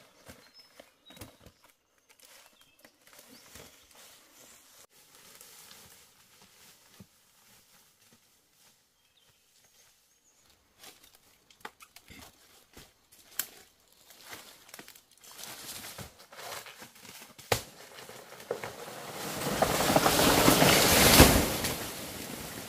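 Footsteps and crackling in dry banana leaves, with a few sharp knocks, then a long rustle that swells to the loudest point near the end and fades: a cut wild banana plant toppling, its big leaves sweeping through dry foliage.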